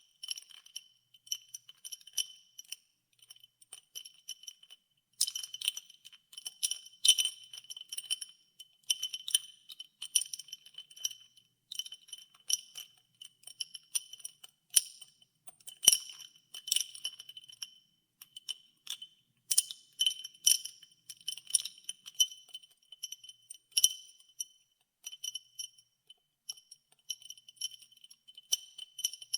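Ice cubes stirred in a glass of iced water, clinking against the glass in quick irregular runs, each clink leaving a brief high ringing tone.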